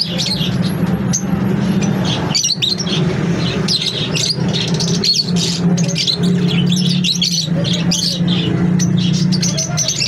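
A flock of caged peach-faced lovebirds chattering: many rapid, overlapping high chirps, over a steady low hum.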